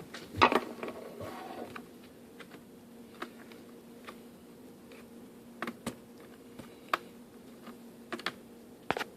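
Scattered small clicks and taps of a screwdriver working the screws of a laptop screen bezel, irregular and a second or so apart, over a faint steady hum.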